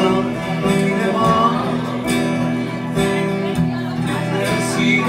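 Acoustic guitar strummed live, its chords ringing on in a slow, steady rhythm: the instrumental opening of an Italian serenade.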